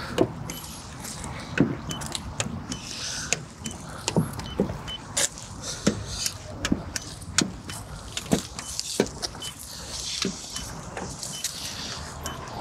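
Paint thickness gauge in use on a car body: irregular clicks and taps as the probe is set on the panels and handled, with faint short high beeps now and then.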